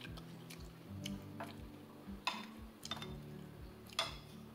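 Soft background music with a steady beat. Over it come a few sharp, ringing clicks of a metal spoon against a glass bowl; the clearest is about four seconds in.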